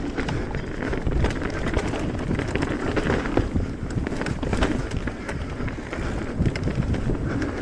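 Mountain bike rolling over a rough trail: steady tyre noise with frequent rattles and clicks from the bike, and wind on the microphone.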